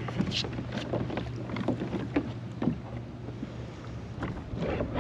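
Irregular light knocks and small water splashes around a plastic fishing kayak as the catch is handled, over a steady low hum.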